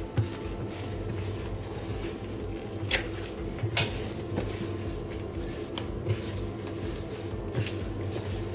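A hand squishing and working a sticky bread dough of flour, butter, egg and milk in a stainless steel bowl, with a few sharp knocks against the bowl, the clearest about three and four seconds in.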